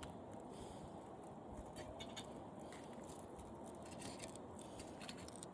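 Faint, irregular small clicks and scratches of thin aluminum radiator fins being snipped and pulled off the copper tubing of a window air conditioner's radiator with wire snippers or pliers, over a steady low hiss.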